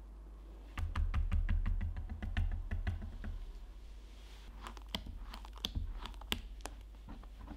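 Spatula stirring and folding white chocolate mousse in a glass bowl: a quick run of soft, wet clicks over a low rumble for a couple of seconds, starting just under a second in, then scattered clicks and smacks as the spatula folds through again.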